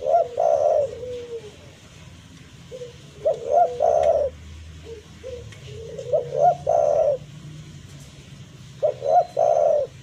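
Spotted dove cooing: four phrases about three seconds apart, each a few quick short notes ending in a longer, louder coo.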